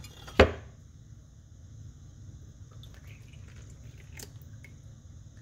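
A sharp knock about half a second in, then milk being poured from a plastic measuring jug into a bowl of raw eggs: a faint wet pouring with a few small ticks.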